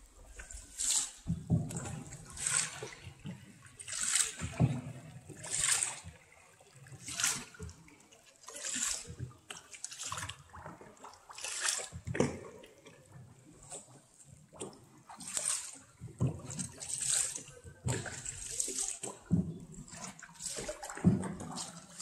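Wooden paddle strokes splashing in the cave river, a regular rhythm of one splash roughly every one and a half seconds as the tour boat is paddled along.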